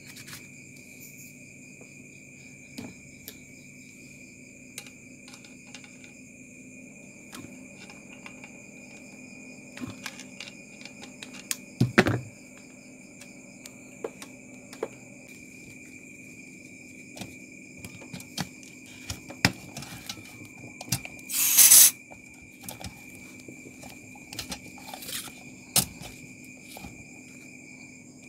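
Clicks and knocks of refrigerant hoses, valves and fittings being handled on a manifold gauge, vacuum pump and R134a can. About 21 seconds in comes a short, sharp hiss of gas escaping at a hose connection. A faint steady high tone and low hum sit underneath throughout.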